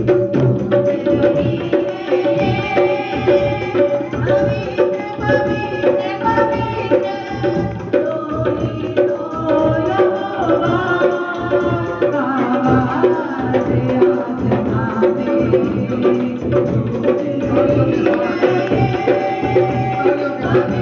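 Hindi worship song music: a tabla-style hand-drum beat drives it steadily, with melodic instruments playing over it.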